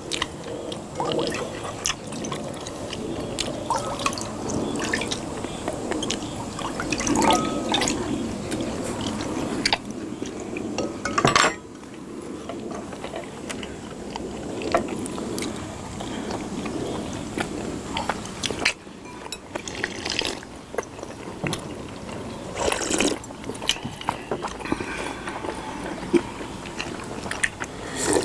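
Sujeonggwa (cinnamon punch) being ladled from a glass serving bowl into small glass bowls: liquid pouring and dripping, with sharp clinks of the metal ladle against the glass now and then.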